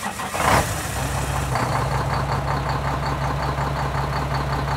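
An engine starts about half a second in and settles into a steady idle, with a faint regular ticking about four times a second.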